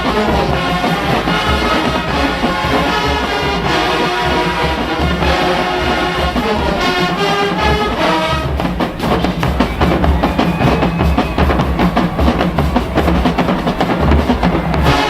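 Marching band brass playing loud held chords over bass drum, giving way about halfway through to rapid, driving drumline percussion under the horns.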